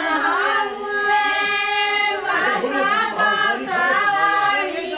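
A group of women singing a traditional Madhesi wedding folk song together, in long held notes.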